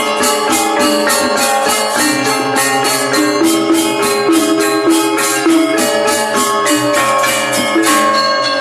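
Balinese gamelan gong kebyar playing: rapid, even strokes on the reong kettle gongs and bronze metallophones, with a steady high metallic jangle on top.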